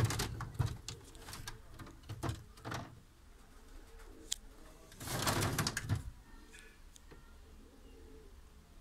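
Pigeons cooing in a small wooden loft, with clicks and knocks in the first few seconds and a loud rustling burst about five seconds in.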